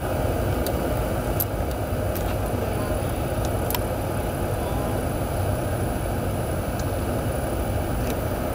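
Steady rumble and hiss of a car's interior with the engine running, with a few faint ticks.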